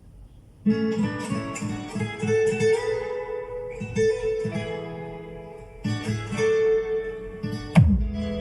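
Music led by a plucked guitar, starting about half a second in after a short silence, with a sharp hit near the end.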